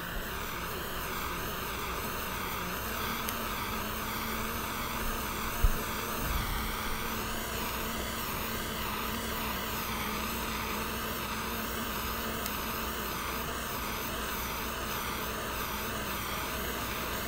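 Butane micro torch burning with a steady hiss while heating a heat-shrink solder butt connector to melt the solder inside. A short knock sounds about six seconds in.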